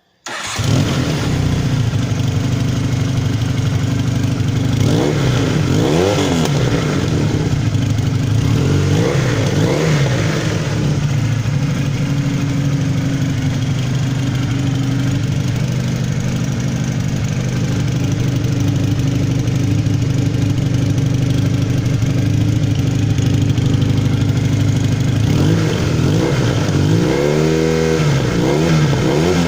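Honda CBR 450 motorcycle engine running through a Pro X aftermarket exhaust with its baffle tip fitted. The sound comes in suddenly at the start, and the engine idles steadily with brief throttle blips about five and nine seconds in and a run of quick revs near the end.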